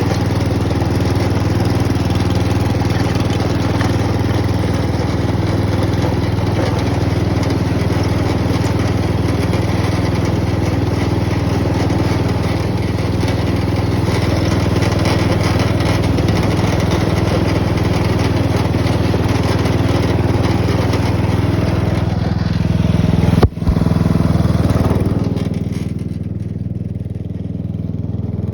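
Hot rod riding lawn mower's small engine running steadily, with one sharp knock about 23 seconds in. A couple of seconds later the engine settles to a lower, quieter note.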